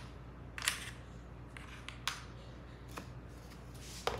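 A few light, sharp clicks and taps as small metal alligator clips are handled and set down on a framed board, the loudest about half a second in.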